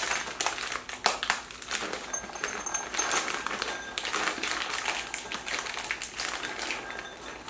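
Plastic bag of chocolate chips crinkling as it is torn open and tipped, with the chips pattering into a ceramic bowl as a run of small clicks.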